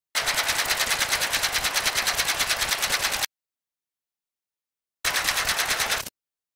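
Rapid mechanical clatter of flipping tiles, like a split-flap display, about a dozen clicks a second for some three seconds, then a second, shorter run of about a second.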